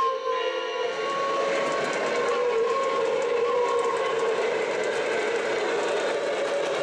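Lionel Legacy Halloween Camelback O gauge model steam locomotive running, its onboard sound system blowing a whistle that fades out in the first half-second. After that comes a steady running noise with faint tones from the train rolling on the track.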